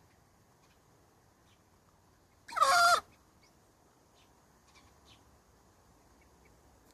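A hen sneezing once, about two and a half seconds in: a single high-pitched sneeze lasting about half a second.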